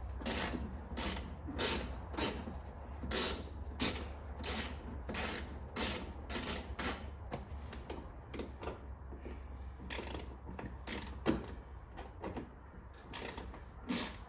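Hand ratchet clicking in a slow, regular rhythm, about one and a half clicks a second, as fasteners are worked loose on the car's front end; the clicks thin out after about eight seconds. A steady low hum runs underneath.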